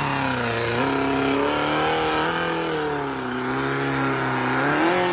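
Tube-frame 2WD off-road buggy's engine revving hard under load as it climbs a steep dirt hill, its pitch rising and falling as the throttle works.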